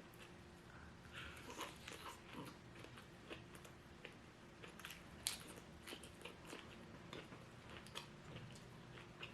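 Close-miked chewing and biting of crisp fried food, lumpia spring rolls and shrimp, with irregular crunches and crackles and one sharp crunch about five seconds in.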